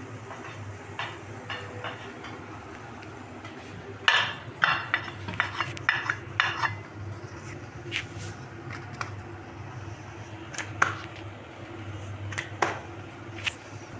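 Knocks and clatter from making roti on a wooden board: the dough being handled and rolled out, with a quick run of sharp strikes a few seconds in, then scattered single knocks. A low steady hum runs underneath.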